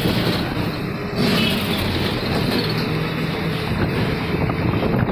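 City bus running along a street, heard from on board: steady engine hum mixed with road noise.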